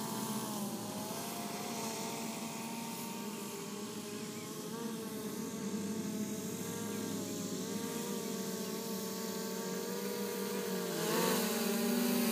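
Autel X-Star Premium quadcopter's propellers buzzing in a hover, the pitch wavering as the motors adjust. About eleven seconds in the pitch dips and the sound gets louder as the drone manoeuvres.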